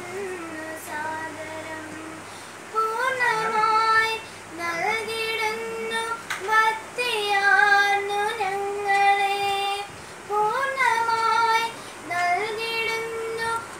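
A young woman singing a Malayalam Christian devotional song solo and unaccompanied, with long held notes that slide between pitches; the first phrase is soft, and she sings louder from about three seconds in.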